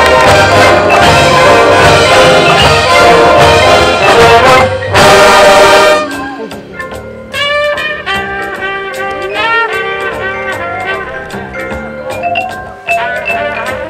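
High school marching band playing loud full-ensemble music with brass and drums. About five seconds in comes a loud cymbal-like crash, after which the band drops to a much softer, sparser melodic passage.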